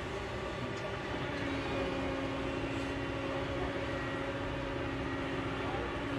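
Kobelco hydraulic excavator's diesel engine running steadily as it digs into the hillside, with a steady held tone over it from about a second in until near the end.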